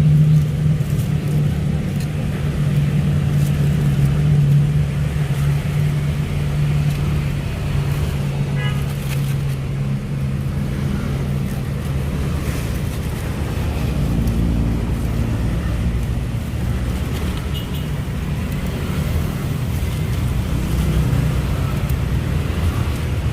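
Road traffic passing close by, with a motor vehicle engine running steadily as a low hum and a continuous rumble of passing vehicles.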